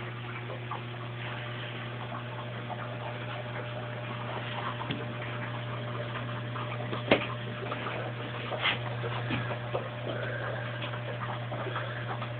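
Kenmore Oasis top-load washing machine just started on its cycle with the lid locked: a steady low hum with scattered light clicks, and a sharper click about seven seconds in and again near nine seconds, in the start-up stage before the water begins to fill.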